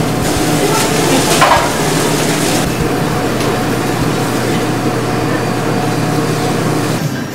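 Steady background din of a commercial kitchen: a constant hum and rumble of equipment, with a brief clatter about a second and a half in.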